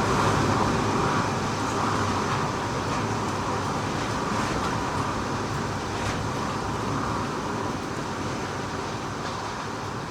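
Strong typhoon wind blowing steadily, easing slightly toward the end.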